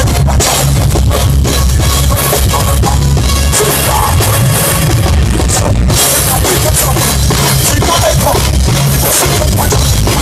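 Loud live concert music without vocals: drums and heavy bass from the stage's sound system, with a steady beat.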